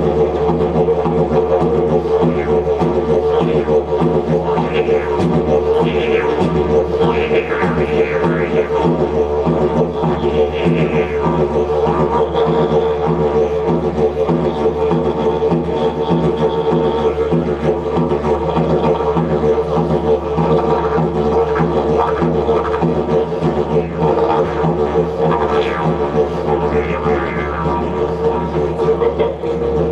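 Didgeridoo played live, holding a continuous low drone with rhythmic higher-pitched accents and overtone shifts over it.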